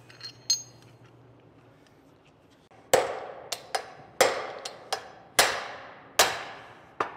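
A series of sharp, ringing hammer blows on a steel driver rod, seating a pinion bearing race in a Toyota Tacoma differential housing, starting about three seconds in. The ring of the blows is what tells by ear when the race has gone all the way in.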